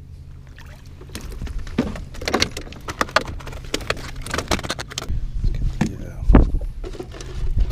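Irregular sharp clicks, knocks and rattles as a caught fluke and gear are handled in a canoe.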